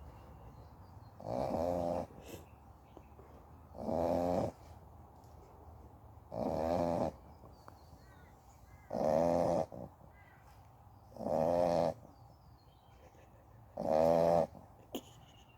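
American Staffordshire Terrier x Bully XL dog snoring in a steady rhythm: six short, buzzing snores about two and a half seconds apart, with one brief click near the end.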